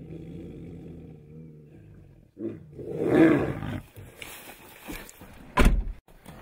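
Tigers snarling and roaring during mating. A loud, drawn-out snarl comes about halfway through, and a short, sharp snarl comes near the end, over a low steady hum in the first couple of seconds.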